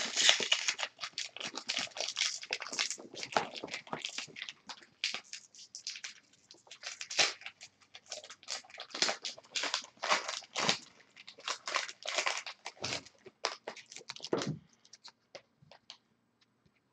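A Magic: The Gathering booster pack's plastic wrapper crinkling and crackling as it is worked and torn at by hand. The crackles come in a quick, irregular run and stop a couple of seconds before the end.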